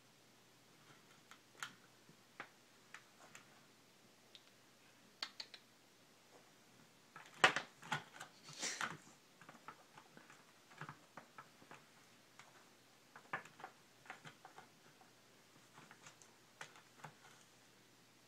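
Scattered small clicks and taps, with a louder cluster of knocks and rustling about halfway through.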